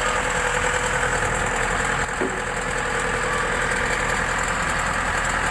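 A diesel engine idling steadily.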